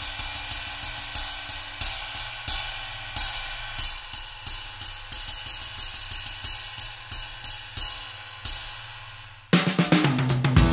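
Ride cymbal played in a steady ride pattern with wooden drumsticks, first a Vic Firth 5B with standard taper and then a Vic Firth AJ1 with elongated taper, each strike ringing into the next. About a second before the end the cymbal stops and background music starts.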